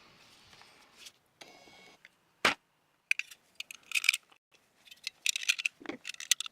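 Metal clicks and rattles of 1911 pistol parts being handled: one sharp loud click about two and a half seconds in, then a run of small clicks and clatters.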